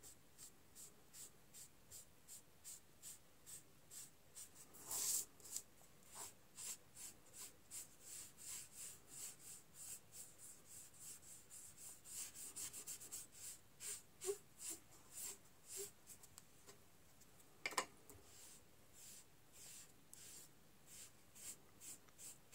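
Sponge applicator rubbing PanPastel onto paper in short, faint strokes, about three a second. One stroke about five seconds in is louder, and a single sharp click comes about eighteen seconds in.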